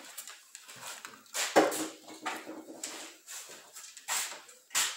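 Household objects being handled and set down: a sharp knock about a second and a half in, followed by a faint steady whine lasting a second or so, then two more short knocks near the end.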